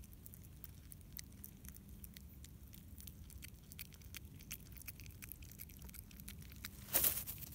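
Common brushtail possum chewing food held in its paws: faint, irregular small clicks and crunches of eating. Near the end comes one louder crunch or rustle, about half a second long.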